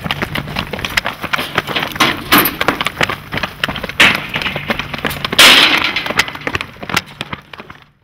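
Running footsteps and a scuffle on pavement: a quick run of knocks and clatter, with a loud crash about five and a half seconds in, before the sound fades out near the end.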